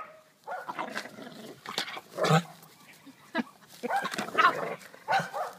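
Dogs playing tug on a fur toy and making excited play noises: several short, wavering, high-pitched calls in quick succession, with a few sharp scuffling clicks.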